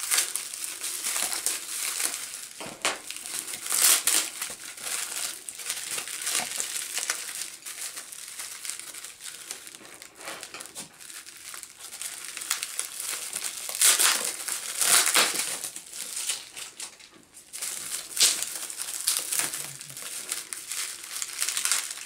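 Plastic bubble wrap crinkling and crackling as hands cut and pull it open around a small wrapped item, with louder crackles about 4 seconds in, around 14 to 15 seconds and near 18 seconds.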